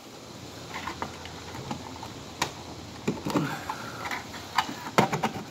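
Irregular plastic clicks, taps and rattles as a Simplex horn strobe's housing and its wires are handled, with a few sharper knocks, the loudest about five seconds in.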